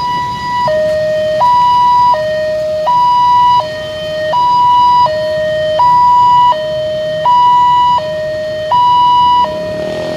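Railway level-crossing warning alarm sounding a steady two-tone signal, switching between a higher and a lower tone about every 0.7 seconds, warning that a train is approaching. A low rumble starts to build right at the end.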